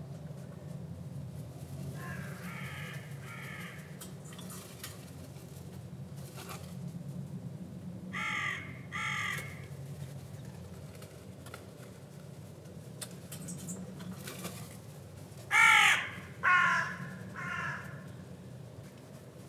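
Crows cawing in short separate calls: two faint caws about two seconds in, a louder pair near the middle, and three loud caws near the end. Under them runs a steady low drone of distant aircraft.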